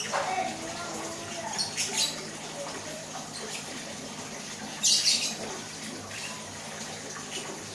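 Lovebirds giving short, sharp, high-pitched chirps: a couple about two seconds in and a louder double chirp about five seconds in, over a steady low hiss.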